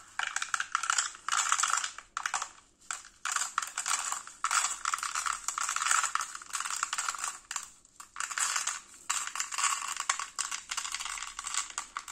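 Ceramic and clay biological filter-media balls being poured from a net into the plastic body of a Ciano CF80 aquarium filter: a dense rattling clatter that comes in several pourings with short breaks between.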